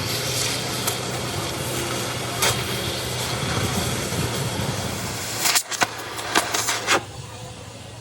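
An engine running steadily with a low hum. A handful of sharp metallic knocks come between about five and seven seconds in, after which the engine sound is quieter.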